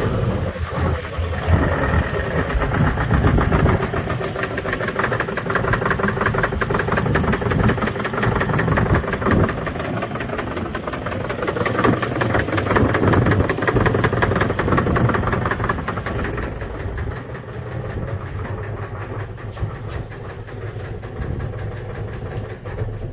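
Engine running just after start-up with a fast, regular knock, which the owner takes for rod knock. It settles slightly quieter after about sixteen seconds.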